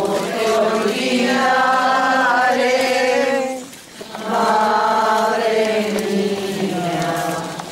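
Voices singing a slow religious hymn in long held notes, in two phrases with a short breath between them about four seconds in.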